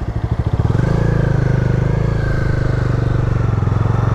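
Bajaj Dominar 250's single-cylinder engine running at low revs with an even pulsing beat, a little louder from about half a second in.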